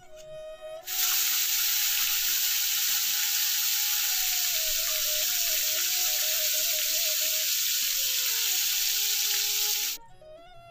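Fish frying in oil in a pan, a loud steady sizzle that starts abruptly about a second in and cuts off near the end, over background music with a simple melody.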